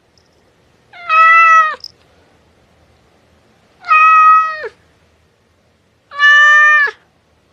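Domestic cat meowing three times, evenly spaced about two and a half seconds apart, each meow a loud drawn-out call that drops in pitch at its end.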